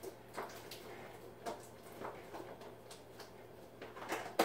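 Scattered light clicks and taps of plastic food containers and a bread bag being handled while a sandwich is made, with one sharper click near the end.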